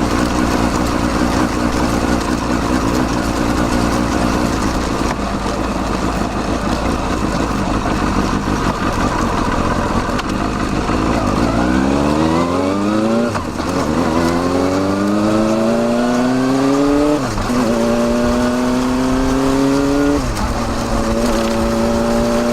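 Kawasaki Balius 250 cc inline-four exhaust through a Wr's muffler with its baffle fitted, heard right at the silencer. It runs steadily for about ten seconds, then revs up as the bike accelerates, and three upshifts each cut the pitch before it climbs again.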